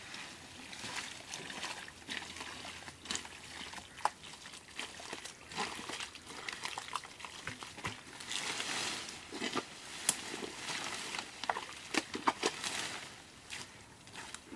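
Bare hands digging and scooping through wet mud and muddy water while feeling for an eel in its hole: irregular squelches, slaps and small splashes, busiest in the second half.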